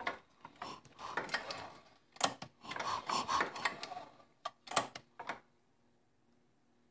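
Tecumseh four-stroke flathead engine being turned over slowly by hand to bring it onto the compression stroke: scattered mechanical clicks and rubbing, with a few sharper clicks in the second half, stopping about five and a half seconds in.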